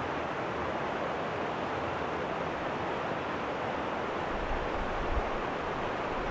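Stream water rushing steadily over a low rocky ledge in a small cascade. A low rumble joins in about four seconds in.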